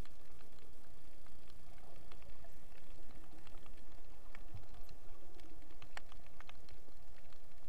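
Underwater recording: a steady low rumble of water moving against the camera, with scattered sharp clicks and crackles, a few louder ones in the second half.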